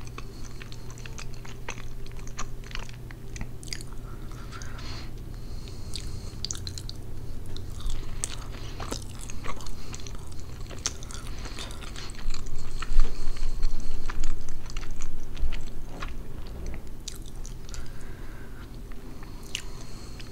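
Close-miked chewing of pernil (roast pork) with rice and beans: wet mouth sounds and many small clicks and crackles. The chewing gets louder for a few seconds past the middle.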